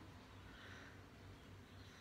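Near silence: room tone with a faint low hum.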